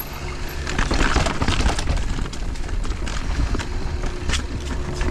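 Mountain bike descending rough rocky terrain: tyres knocking and rolling over rock, with the bike rattling on repeated impacts and a steady low rumble of wind on the microphone.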